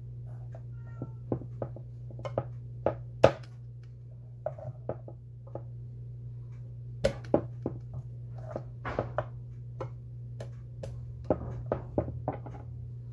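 Kitchen knife slicing garlic cloves on a wooden cutting board: irregular sharp knocks of the blade striking the board, over a steady low hum.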